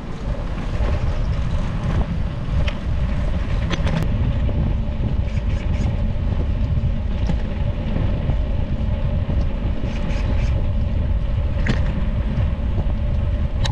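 Wind rushing over a bicycle-mounted action camera's microphone while riding: a loud, steady low rumble with a faint even hum above it and a few light clicks.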